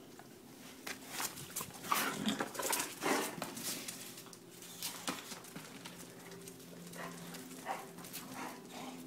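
Boxer dogs barking in play: a quick flurry of short barks about two to three seconds in, then a few scattered ones later.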